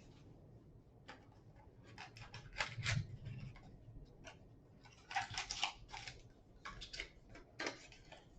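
Scattered light clicks and short rustles of a trading-card box and cards being handled and opened, with a few louder bursts of rustling.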